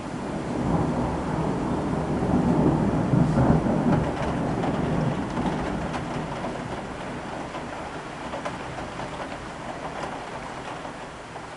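A long roll of thunder that swells in the first second, is loudest around two to four seconds in, then slowly rumbles away, with rain falling.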